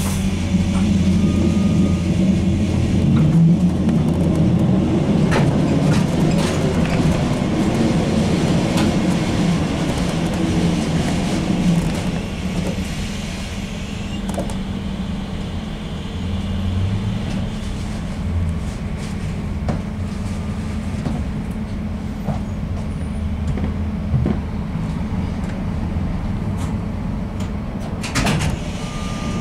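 A ZiU-682 trolleybus under way, heard from on board: a steady low running hum, louder and busier over the first dozen seconds, then quieter, with a few sharp clicks near the end.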